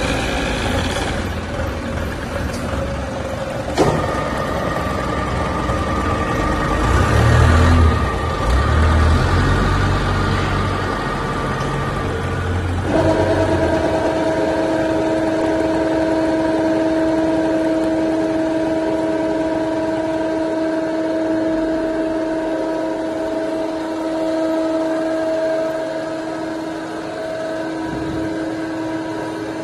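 Hydraulic plywood cold press running, its pump unit giving a steady whine while the rams press the veneer stack against the top platen. There is a knock about four seconds in and heavy low rumbling through the middle. About thirteen seconds in the whine shifts to a new, louder set of tones that then holds steady.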